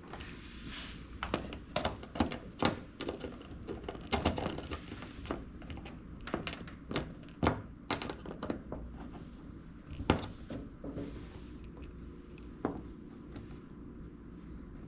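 Irregular light clicks and knocks of hands working at a circuit breaker's terminals, pushing the small rubber isolator boots back on over the tightened terminal nuts. The clicks come thickly for the first half, then thin out, with one sharper knock about ten seconds in.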